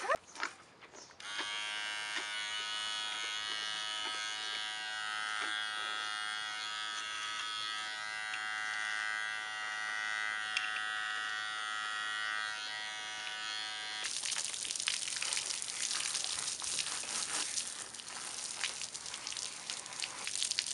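Handheld electric animal clippers buzzing steadily as they clip hair around a pony's muzzle. About fourteen seconds in this gives way to the hiss and splatter of a garden hose spraying water over the pony.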